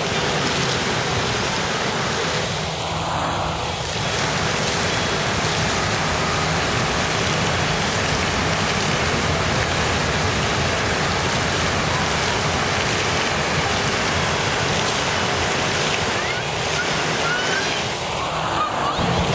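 Walt Disney World Mark VI monorail running along its concrete beamway: a steady rushing hiss with a faint low hum. Brief voices are heard near the start and near the end.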